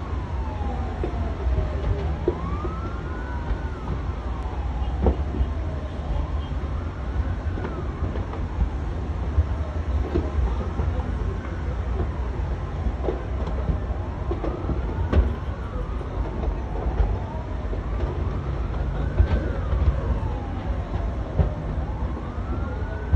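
Emergency vehicle sirens wailing in slow rising and falling sweeps, one about every four seconds and sometimes overlapping, over a steady low rumble.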